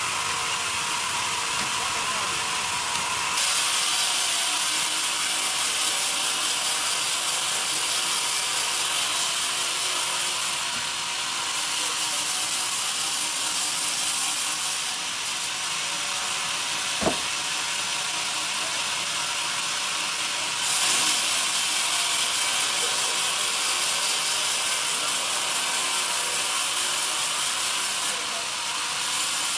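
Vertical log bandsaw running and ripping lengthwise through a young pine cant on the sawmill carriage. It makes a steady hiss that swells in long stretches and drops back in between, with one sharp click about two-thirds of the way through.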